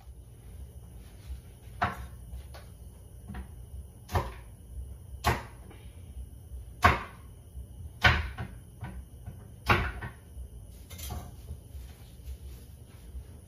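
Kitchen clatter: a string of sharp knocks and bangs, about seven louder ones a second or two apart with smaller ones between, over a low steady hum.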